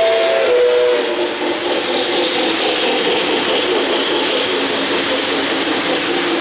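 A model train's chime whistle, several tones sounding together, cuts off about a second in. It gives way to the steady rolling noise of O-gauge passenger cars running past on three-rail track.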